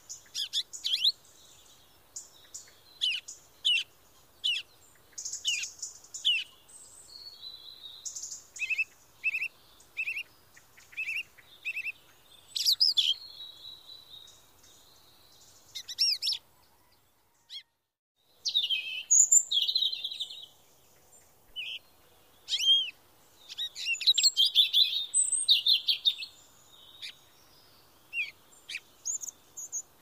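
Eurasian jay nestlings begging at the nest: many short, high chirps and raspy calls in quick runs, broken by a brief silence just past halfway.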